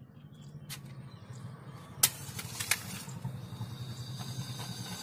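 Handheld gas brazing torch on a gas cartridge being lit, a sharp click about two seconds in, then the flame's steady hiss building, over a low steady hum.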